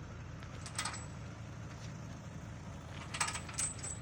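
A heavy machine's engine idling with a steady low rumble, with a sharp metallic clink about a second in and a quick run of three or four metallic clinks near the end.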